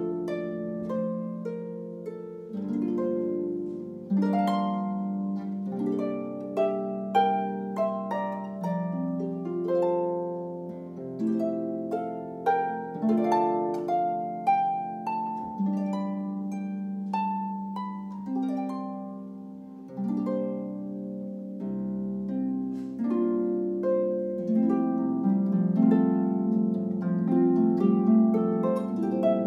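Solo harp played by hand: a run of plucked notes ringing out over low bass notes.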